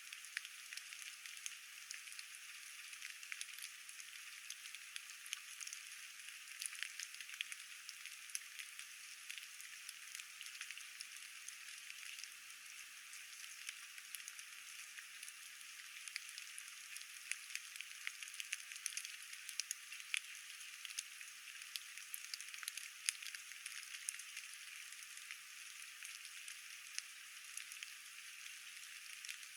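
Steady rain, heard as an even hiss dotted with many small, irregular ticks of individual drops.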